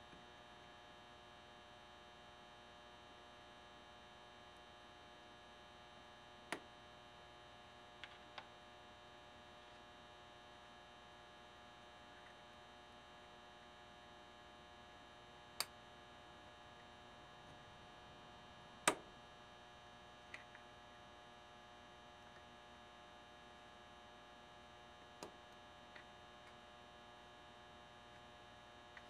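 Steady electrical mains hum, with a few short light clicks of metal on metal as a piston ring is handled around an aluminium piston. The loudest click comes a little past halfway.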